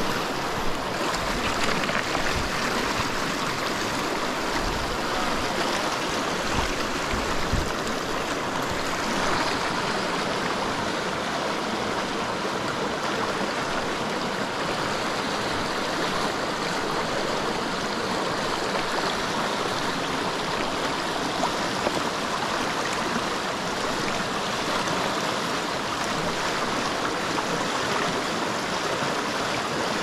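Fast glacial meltwater stream rushing over rocks and cobbles in a steady, even roar of water, with a few low thumps in the first several seconds.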